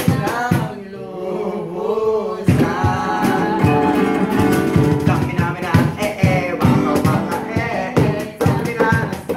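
Acoustic guitars strummed together with singing; the strumming gets fuller and steadier about two and a half seconds in.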